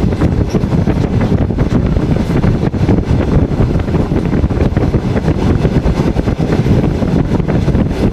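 Loud wind buffeting the microphone at the open window of a moving passenger train, a rough, fluttering rush over the low rumble of the carriage running on the rails.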